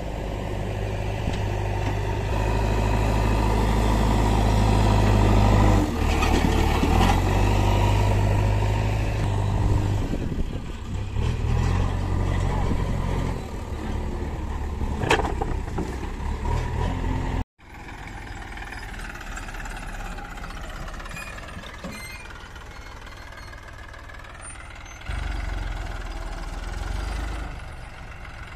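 Diesel engines of a JCB backhoe loader and a tractor running, the loader's engine speed changing in steps as it scoops and raises a bucket of broken bricks and soil, with a sharp clatter about fifteen seconds in as the load is tipped into the trolley. After a cut, a Massey Ferguson tractor's diesel engine runs more quietly as it pulls the loaded trolley, louder for a couple of seconds near the end.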